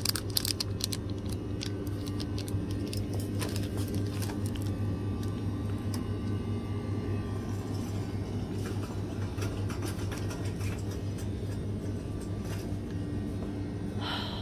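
Steady low rumble and hum of the store, with a run of clicks and rattles near the start from a plastic-wrapped pack of sticky notes being handled.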